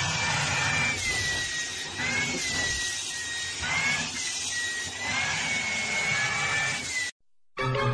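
Vacuum cleaner running with a steady rush of air and a high motor whine that wavers up and down in pitch, cutting off suddenly about seven seconds in.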